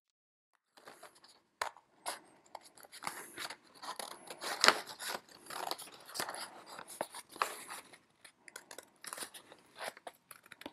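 Scissors cutting through folded white photo card: an irregular series of snips and crisp crunching cuts, with the stiff card rustling as it is turned, starting about a second in.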